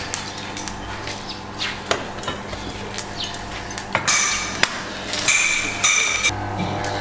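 Metal clinks and scraping from a long-handled shovel working the charcoal bed under rotisserie spits, with a louder run of scraping and clattering about four to six seconds in, over a steady low hum.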